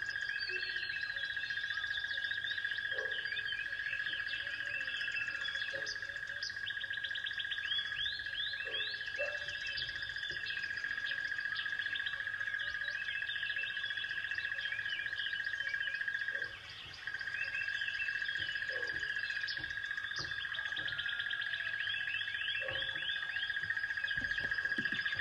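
Many small birds chirping and twittering over a steady high-pitched tone, which breaks off for a moment about two-thirds of the way through.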